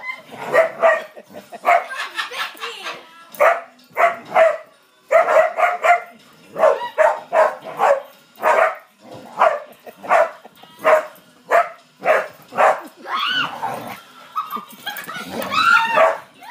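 Spaniels barking excitedly over and over, about once a second, with higher, wavering cries near the end.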